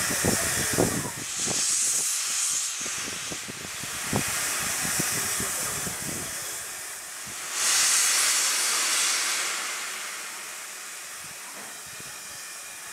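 Steam hissing from LMS Jubilee class locomotive 45596 'Bahamas' standing in steam, a steady hiss that surges louder twice, about a second and a half in and again near eight seconds. A few low knocks sound in the first second and again around four seconds in.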